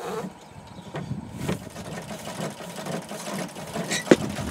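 Standard Rotary treadle sewing machine running under foot power, a steady mechanical whir and clatter with a couple of sharper clicks, about one and a half and four seconds in. It is driven by a freshly joined leather treadle belt that is a little loose.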